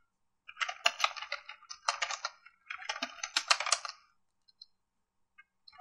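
Fast typing on a computer keyboard: quick flurries of key clicks, three in a row, stopping about four seconds in and starting again near the end.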